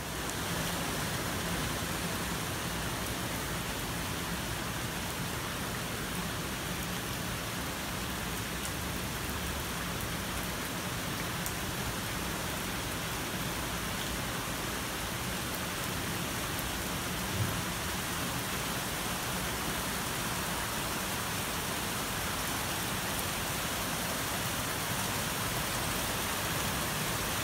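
Heavy rain pouring steadily onto pool water and wet paving, with one brief low thump a little past halfway.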